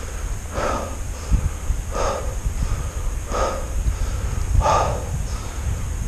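A person breathing hard and evenly, about one loud breath every second and a half, over a low wind rumble on the microphone.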